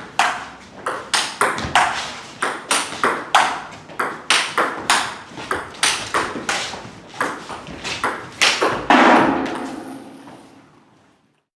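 Table tennis rally: a plastic ball clicking off the bats and bouncing on the table about twice a second, with a forehand chopper's backspin returns off a SPINLORD Irbis II max rubber. A louder, ringing knock comes about nine seconds in, and then the sound fades away.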